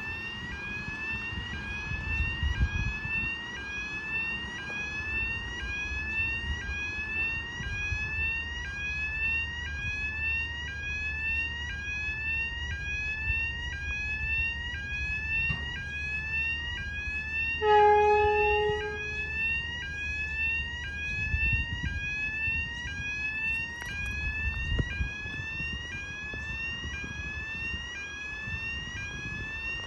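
An electronic warning tone rises in pitch over and over, about once every second and a quarter, in the manner of a railway level-crossing alarm. Under it a train rumbles past, and near the middle it gives one loud, steady horn blast lasting about a second and a half.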